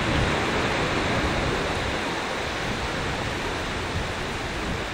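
Steady noise of small waves breaking and washing up a sandy beach.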